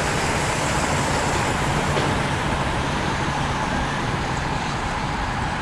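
Steady hiss of road traffic going by, even and unbroken, with a faint low hum under it.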